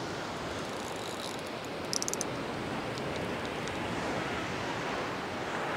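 Sea surf washing steadily against the shore, with some wind. About two seconds in there is a brief, quick run of small clicks.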